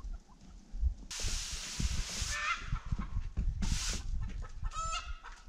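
Free-range chickens clucking in short calls, with a few swishing strokes of a broom over a paver patio.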